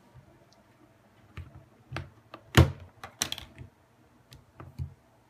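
Plastic clicks and snaps from a BlackBerry's battery cover and battery being pried off and pulled out. The loudest snap comes about halfway through, followed by a quick run of smaller clicks.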